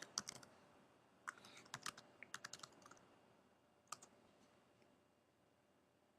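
Faint typing on a computer keyboard: a quick run of about a dozen keystrokes, then a last keystroke about four seconds in.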